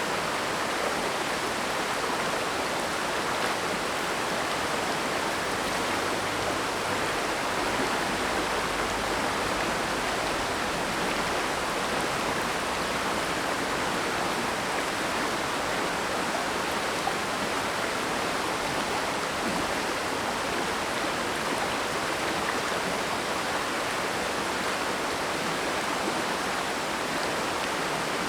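Mountain stream rushing steadily over rocks, an even continuous rush of water.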